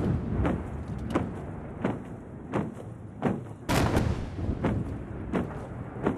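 Ceremonial salute cannons firing: sharp reports about every two-thirds of a second, each with an echoing tail, and one much heavier boom with a long rolling echo about three and a half seconds in.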